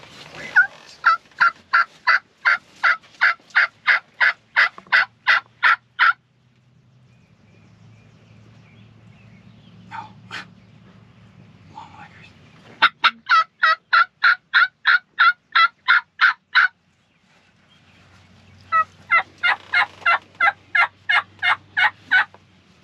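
Turkey hen yelping made on a mouth diaphragm call: three long, loud series of evenly spaced yelps, about two and a half a second, with pauses of a few seconds between them.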